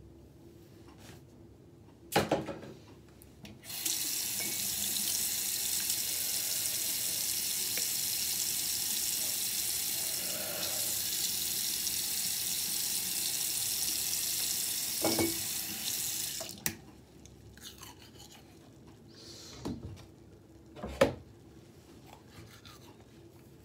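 Bathroom sink tap running steadily for about twelve seconds, then turned off. A few short knocks come before and after it, the loudest a sharp knock near the end.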